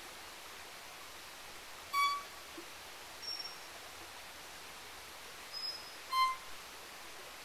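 Violin playing two short, high bowed notes about four seconds apart, imitating the pygmy wren babbler's call. Between them come two fainter, much higher thin whistles, over a steady hiss.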